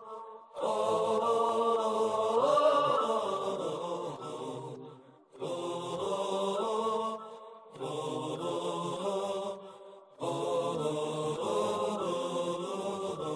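Wordless vocal intro of a nasheed: layered voices holding sustained chords in four phrases with short pauses between them, the first swelling up in pitch briefly.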